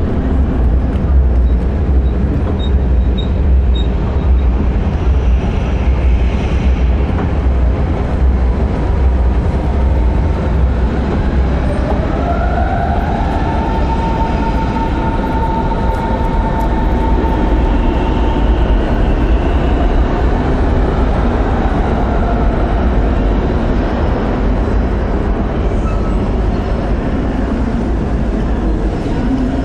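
Electric train running with a steady low rumble. About twelve seconds in, the motor whine rises in pitch and then holds steady for several seconds. Three short high beeps sound near the start.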